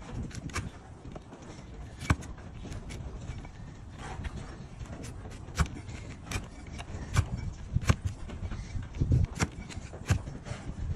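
A large flat hoof-trimming blade paring through an overgrown donkey hoof against a wooden block: irregular sharp cracks and knocks as slices of horn are cut away, with dull thumps in between.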